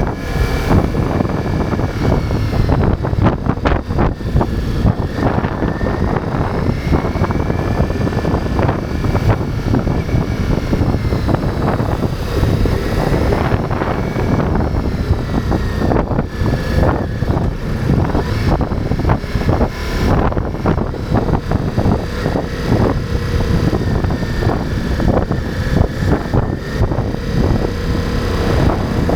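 Ducati Multistrada V4 motorcycle's V4 engine running under way at steady cruising speed, its pitch gently rising and falling with the throttle, with a low wind rumble on the microphone.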